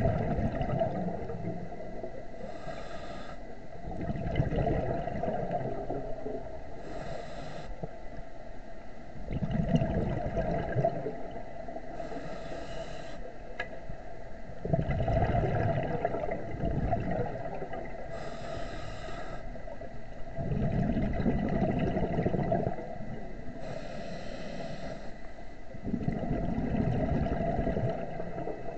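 Scuba diver breathing through a regulator underwater: a short hissing inhale, then a longer, louder bubbling exhale, repeating about every five to six seconds.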